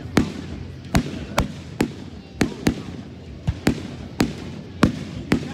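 Aerial fireworks bursting: a rapid, irregular series of sharp bangs, about two a second.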